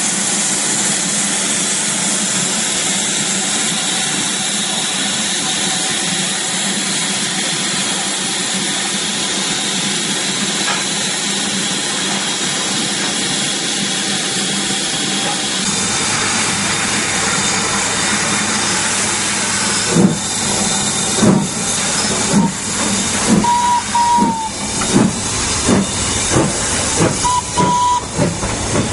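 BR Standard Class 4MT 2-6-0 steam locomotive No. 76079 standing with steam hissing steadily, then starting away. About twenty seconds in its exhaust chuffs begin, slow at first and quickening as the train pulls out, with two brief high tones near the end.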